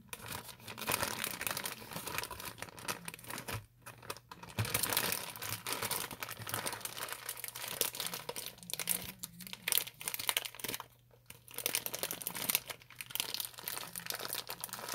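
Clear plastic zip-top bag crinkling and rustling in the hands as slime is pulled out of it, in irregular bursts that stop briefly twice.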